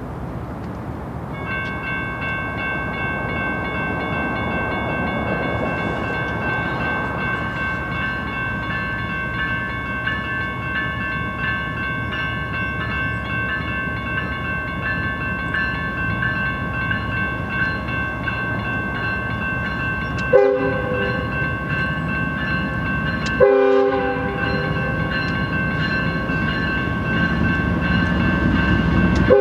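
A grade-crossing warning bell rings steadily from about a second and a half in, over the low rumble of an approaching freight train's diesel locomotives. Two short train-horn blasts come about two-thirds of the way through, and the locomotive rumble grows louder near the end as the lead unit, a GE ES44DC, nears the crossing.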